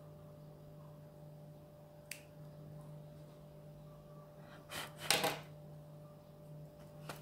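Hands handling fabric and a stiff embroidered appliqué. There is a small click about two seconds in, a brief rustle of cloth a little before the five-second mark, and another click near the end, over a steady low hum.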